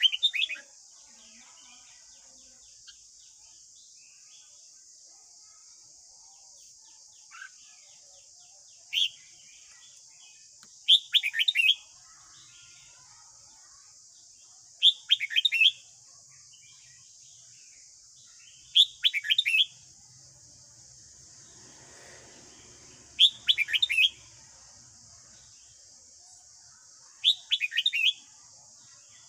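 Red-whiskered bulbul singing its morning song: short, quick phrases of falling whistled notes, one every few seconds, over a steady high hiss.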